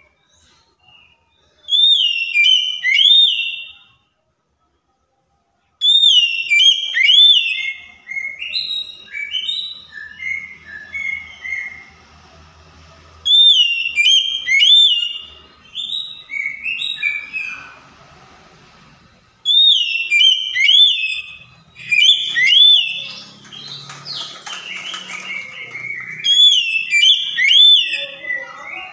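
Oriental magpie-robin (kacer) singing: a loud whistled phrase of looping, upslurred notes, repeated about five times with short pauses, each time running on into quieter, varied chattering notes.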